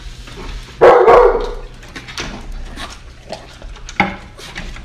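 Alaskan malamute barking for food: one loud bark about a second in, then a few shorter, quieter sharp sounds near two and four seconds.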